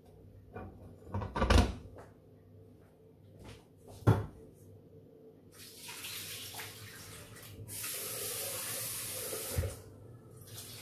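Two knocks of a pan being set down on a glass-ceramic hob, then a kitchen tap running into the sink, the flow coming in about halfway and running harder for a couple of seconds near the end.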